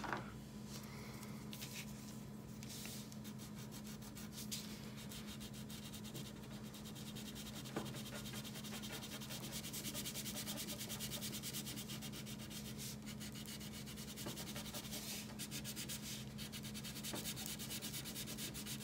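Green wax crayon colouring back and forth on paper: a rapid, steady scratching of closely spaced strokes, thickest from about six seconds in. A faint steady low hum runs underneath.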